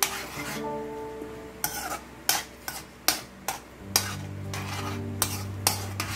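A spatula stirring and scraping around a metal pan of simmering sweet and sour sauce, thickened with cornstarch. It makes uneven strokes about twice a second.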